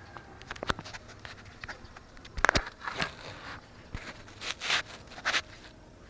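A flat screwdriver prying at plastic trim on a Ford Focus door: scattered clicks and short scraping rasps, the loudest about halfway through and again near the end.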